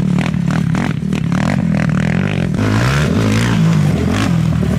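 Race quad (ATV) engine revving hard as it rides past close by, its pitch climbing and dropping as the rider works the throttle.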